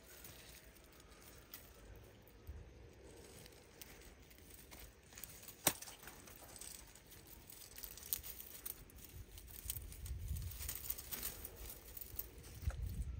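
Faint rustling and crackling in dry vines and leaves, with scattered small clicks and one sharp click about six seconds in. Low wind rumble on the microphone comes and goes from about ten seconds in.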